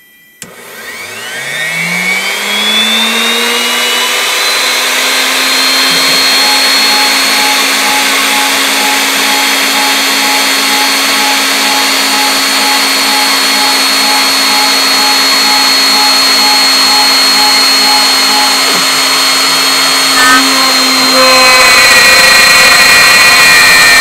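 CNC router spindle switching on and spinning up, its whine rising in pitch over about two seconds and then running steadily at speed. About 21 seconds in it gets louder and rougher as the quarter-inch flat bit begins cutting into the pine board.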